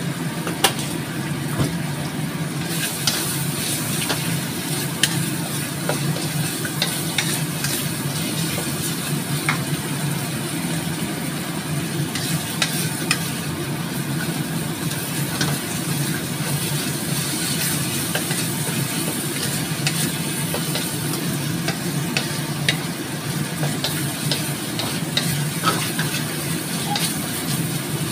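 Chili spice paste sizzling in a metal wok while a wooden spatula stirs it, with frequent irregular clicks and scrapes of the spatula against the pan. The paste is being stir-fried until cooked.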